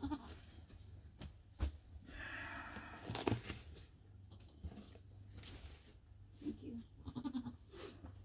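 Nigerian Dwarf goat bleating in short calls, at the start and a few more times near the end. Between them come rustling and two sharp knocks, the second, about three seconds in, the loudest sound.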